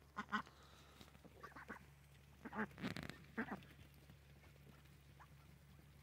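A flock of white domestic ducks quacking while they feed, in short scattered bursts. The loudest calls come about halfway through, and the calls thin out to one faint quack near the end.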